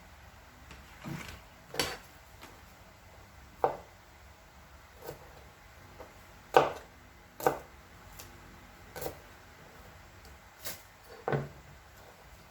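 Kitchen items being handled and set down on a hard surface: about ten separate knocks and clacks at irregular intervals, the loudest about halfway through.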